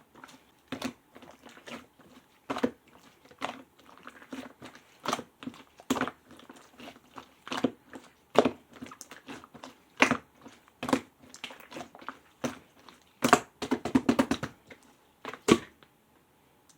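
Mixed clear slime being pressed and squished by hand, giving irregular sticky clicks and pops about once a second, with a quick run of crackling pops near the end.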